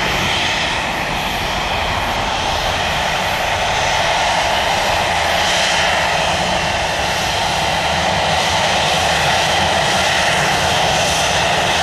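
Jet engines of a taxiing Boeing 737 airliner running as it turns, a loud, steady rush of engine noise and jet blast.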